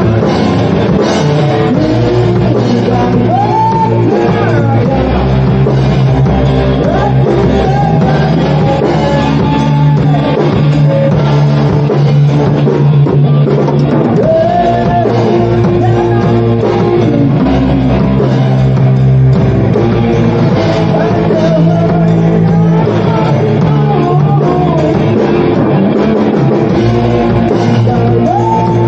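Rock song with singing over electric guitar, bass and a drum kit, loud and steady throughout.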